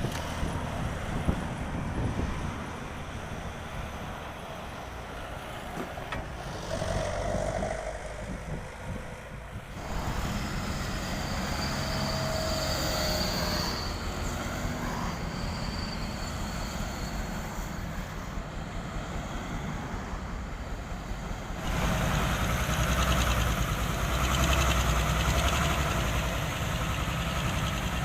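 Diesel engines of heavy road-construction machinery running steadily. The sound changes abruptly and gets louder about ten seconds in and again near twenty-two seconds.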